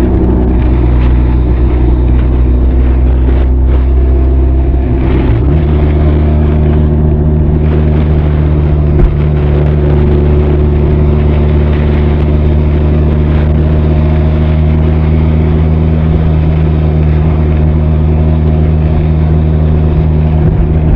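Benelli TRK 502's parallel-twin engine and exhaust running steadily on the move, heard from inside a saddlebag. The engine note changes pitch about five seconds in, then holds a steady cruise, with one brief knock a few seconds later.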